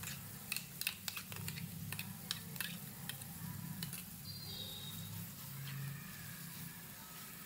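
Onions and curry leaves frying in oil in a nonstick pan, with a faint sizzle and scattered sharp clicks, as a thick ground masala paste goes in. Near the end the paste is stirred in with a wooden spatula.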